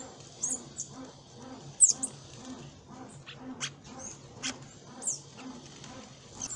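Small birds giving short, high-pitched chirps and squeaks at irregular intervals, one louder burst about two seconds in, over a faint low pulsing that repeats about three times a second.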